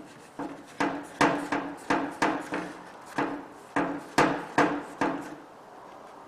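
About a dozen sharp knocks from a tool striking along the metal riffle tray of a dry washer while the new riffle cloth is stretched tight over it. They come roughly two to three a second, each with a short ring, and stop about five seconds in.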